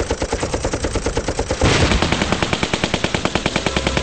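Heavy machine gun firing a long, rapid, even stream of shots. Partway through, more gunfire joins and the firing turns louder and denser.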